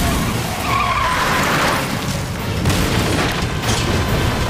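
Rumble of a large fireball explosion, with a short tire squeal about a second in.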